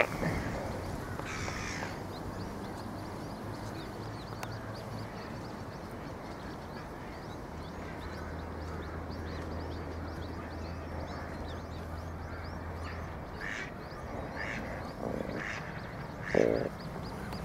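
Ducklings giving rapid, high, thin peeps, with a few harsher duck calls near the end.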